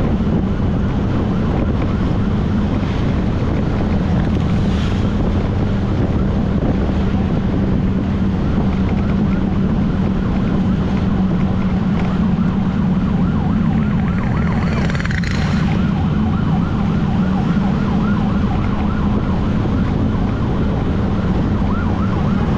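Emergency vehicle siren wailing in a fast, repeating up-and-down yelp, heard from a moving motorcycle over its steady engine and wind rush. A brief louder rush of noise comes about fifteen seconds in.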